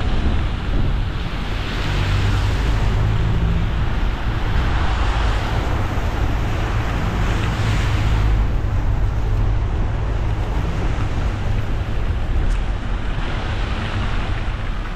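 Car driving on a wet road in the rain: a steady low road rumble under tyre hiss, the hiss swelling and fading a few times.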